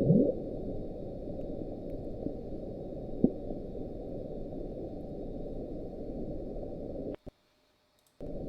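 NOAA autonomous hydrophone recording of the 'Bloop', sped up: a steady low rush of ocean noise with a quick rising sweep at the start and a short blip about three seconds in. The sound cuts out to silence for about a second near the end, then the noise returns. The sound is put down to ice quakes or a large iceberg running aground.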